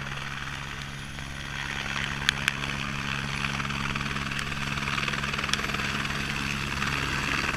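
Helicopter coming in to land, its rotor and turbine running with a steady low hum that grows louder from about a second and a half in as it nears. Two sharp clicks a little after two seconds in.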